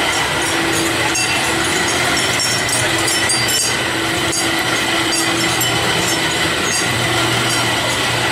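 Kiddie boat ride's drive machinery running steadily as the boats circle the water trough: a continuous mechanical hum with a steady high whine and faint, regular clicks.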